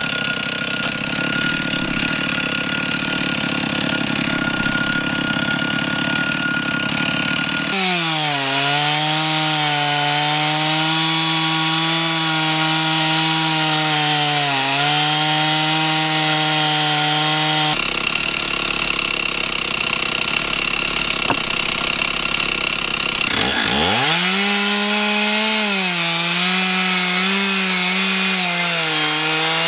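Stihl chainsaw mounted in a Granberg Alaskan chainsaw mill running at full throttle while cutting a round slab off the end of a log; the engine note sags and recovers as the chain works through the wood. About two-thirds through, the saw revs up from low and settles back to a steady cutting pitch.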